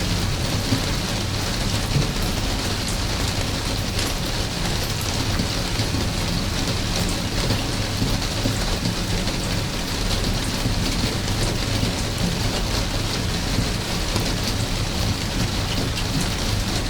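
Steady rain falling, a constant even hiss flecked with countless small drop impacts, over a steady low rumble.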